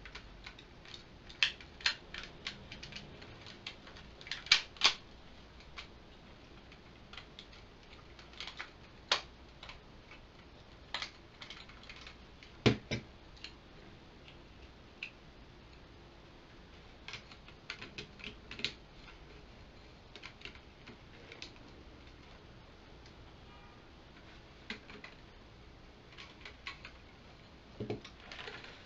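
Hard plastic parts of a Power Rangers Lost Galaxy Megazord toy clicking and knocking as the zords are handled and snapped together. Scattered sharp clicks, a few of them louder.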